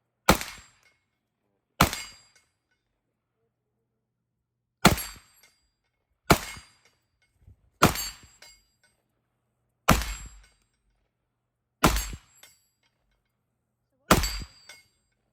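Eight single rifle shots from an AR-style rifle, fired one at a time about one and a half to three seconds apart, each a sharp crack with a short ringing tail.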